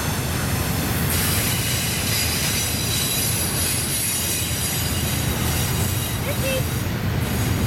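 Double-stack intermodal freight cars rolling past close by: a steady rumble of steel wheels on the rails, with a thin high-pitched flange squeal from the wheels on the curve.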